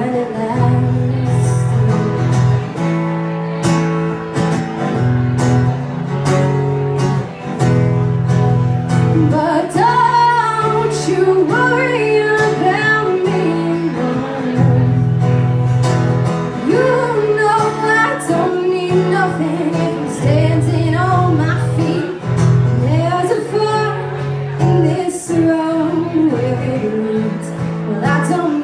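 A woman singing to her own strummed acoustic guitar. The guitar plays alone for roughly the first nine seconds, then her voice comes in over it.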